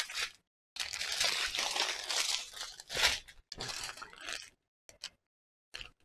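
Small plastic bags of diamond painting drills crinkling and rustling as a strand of them is handled. The rustling is steady at first, then turns into a few short crinkles near the end.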